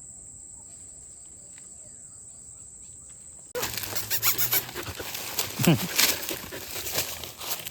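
A cricket's steady high trill, then an abrupt change to loud rustling and crackling, with a short call that swoops down and back up in pitch about two seconds after the change.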